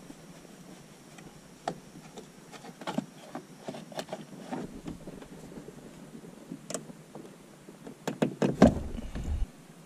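Plastic dashboard and steering-column trim of a Mitsubishi L300 van being handled and pried with a screwdriver: scattered light clicks and knocks, with a louder cluster of knocks and rattling about eight to nine seconds in.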